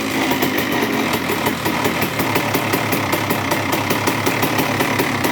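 2002 Honda CR125R's single-cylinder two-stroke engine idling steadily with a fast, even pulsing, just after revving down. It carries a low growling vibration that persists after a new cylinder and transmission repairs, which the mechanic suspects comes from bad crankshaft main bearings or a sloppy clutch basket gear.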